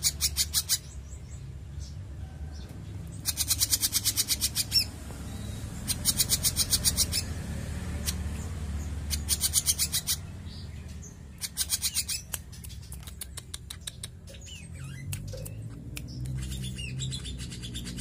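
Songbird calling in bursts of fast clicking notes, each burst about a second long and repeated six times, with a few short high chirps between them, over a low steady hum.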